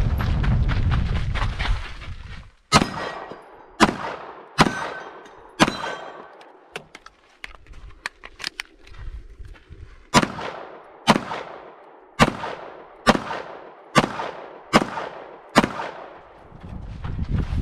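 Semi-automatic pistol shots fired in two strings: four shots about a second apart, a pause of about four seconds with a few small clicks, then seven more shots at a similar pace. A loud low rumble fills the first couple of seconds and returns near the end.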